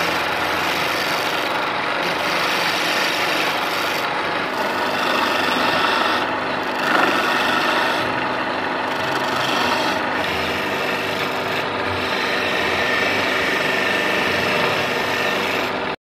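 Wooden spindle spinning on a homemade wood lathe driven by a washing machine motor, with a hand-held flat steel tool scraping into the turning wood: a steady rasping scrape.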